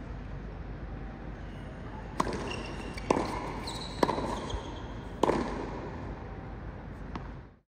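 Tennis ball struck four times, sharp hits about a second apart, each ringing on in the echo of an empty arena, over a steady background hiss. The sound cuts off suddenly near the end.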